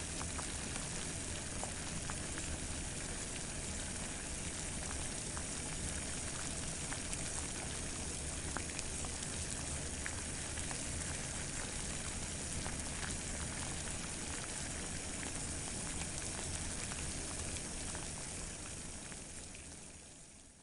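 Water boiling, a steady bubbling hiss with scattered small pops, fading out over the last two or three seconds.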